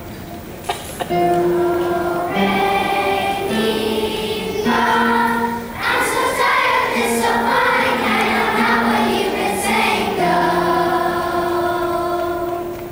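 Children's choir singing, holding long notes; the singing starts about a second in and stops shortly before the end.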